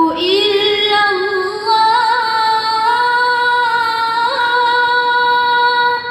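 A boy's voice reciting the Quran in a melodic chanting style, holding long drawn-out notes with wavering ornaments. The voice stops near the end and trails off into a fading echo.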